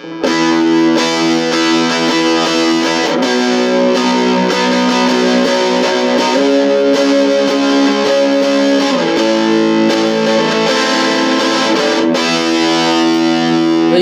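Electric guitar played through a Vox Satchurator distortion pedal with a Caline Clear Boost pedal switched on to push the distorted tone. It plays a few held, ringing chords that change about every three seconds.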